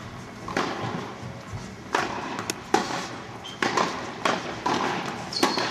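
Tennis balls struck by rackets and bouncing on an indoor hard court: a string of sharp pops and thuds, one every second or so, in the reverberant hall.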